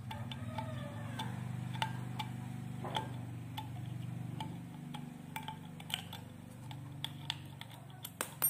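Small sharp metal clicks and ticks at an irregular pace, a few a second, from a screwdriver working small screws in a plastic transceiver part. A steady low hum runs underneath, and one louder click comes near the end.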